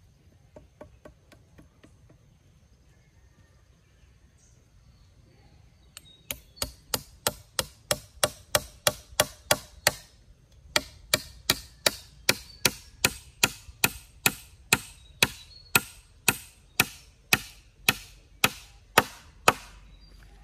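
Hammer strikes on a wooden crossbar-and-post joint, fixing the crossbar to the upright: a few faint taps, then from about six seconds in a steady run of sharp strikes at about two a second, with a brief pause near the middle.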